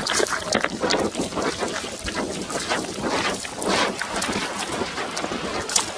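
Rustling and brushing of grass and bushes against a moving person, mixed with handling noise of fingers on the phone's microphone, in a dense irregular run of scrapes; one sharper crack near the end.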